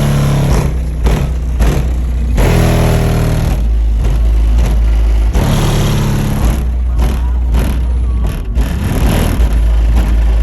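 Car subwoofers, Audio Pipe TXX-BDC4 12-inch woofers driven by a Taramp 8,000-watt amplifier, playing bass-heavy music loud. Deep bass notes hit in long blocks, changing every second or two.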